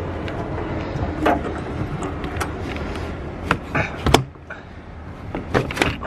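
Plastic interior pillar trim, held on by pressure clips, being pulled and worked loose by hand: a scatter of clicks and knocks, the loudest a little past halfway, over a low steady hum that drops away about four seconds in.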